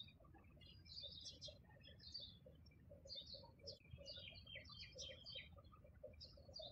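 Faint chirping of many small birds: a steady scatter of short, high chirps, overlapping one another.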